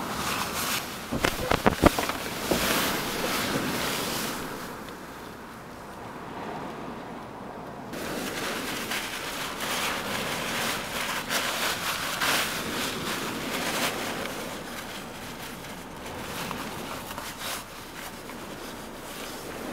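Plastic bag rustling and crinkling as gear is handled, with a quick run of knocks about a second or two in, over a steady rush of wind and surf.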